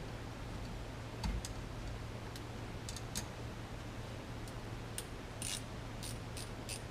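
Scattered light metallic clicks and clinks of small bolts and hand tools being handled while the steering wheel's horn button bolts are put back in, over a low steady hum; the sharpest knock comes about a second in and a short rattle about five seconds in.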